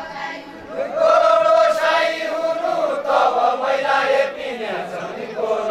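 A group of men singing a Deuda folk song together, unaccompanied: a long held, chanted phrase that starts about a second in and falls in pitch near the end, with the next phrase beginning just as it closes.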